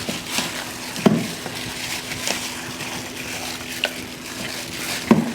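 Gloved hands mixing raw chicken pieces in a wet yogurt-and-spice marinade: an uneven, continuous wet squelching with small slaps.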